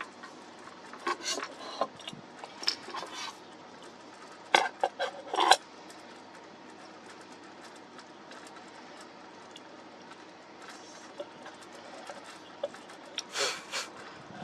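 Light clicks and knocks of hard objects being handled, in short clusters: a few around the first seconds, a sharper run of about four knocks near the middle, then a quiet stretch before a last cluster near the end.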